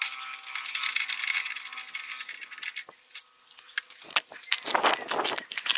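Metal tool clicking and jangling as a wrench works on the stock horn's mounting bolt behind the grille: a dense run of fine metallic clicks for the first few seconds, then a few sharper separate clicks and rattles near the end.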